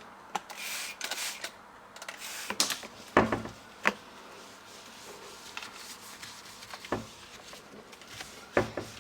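Trigger spray bottle spritzing several times in quick succession, each a short hiss. Four separate knocks and clunks follow, at about three, four, seven and eight and a half seconds in.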